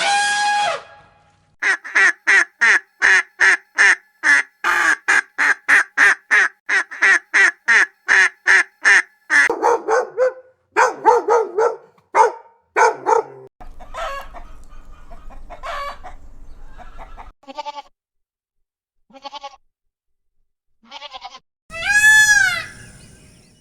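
Farm animals calling: a string of fast, evenly repeated calls, about four a second for several seconds, then lower, rougher calls, a few scattered short calls, and near the end a pitched call that rises and falls.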